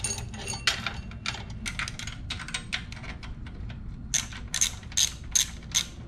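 Hand socket ratchet wrench clicking as a bolt on the minibike is turned: scattered metal clicks at first, then a run of about five sharper, evenly spaced clicks, roughly two a second, near the end.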